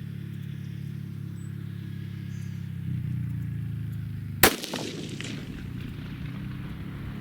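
A single rifle shot about four and a half seconds in, with a short echo after it. A steady low hum runs underneath.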